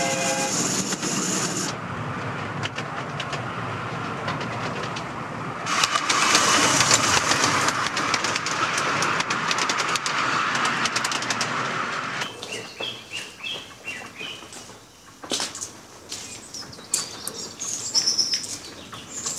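Narrow-gauge steam train: a chime whistle sounds and stops about two seconds in, then the train runs with a loud rushing hiss from about six to twelve seconds in. After that it quietens to bird chirps and scattered clicks.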